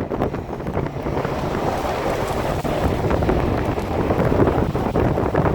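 Snowstorm wind blowing hard against the microphone: a steady rushing noise with low buffeting.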